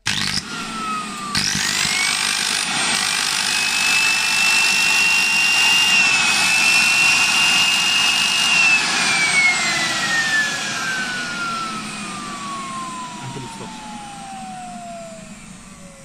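Henry vacuum cleaner's brushed motor run bare on mains power: it starts, climbs within a few seconds to a loud, high, steady whine over a rushing hiss, then from about halfway through runs down with its pitch falling slowly. The motor is sparking heavily at its carbon brushes and commutator, a sign of a worn or dirty commutator.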